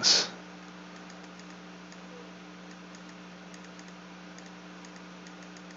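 Faint, scattered clicks of computer input at a desk, over a steady low electrical hum.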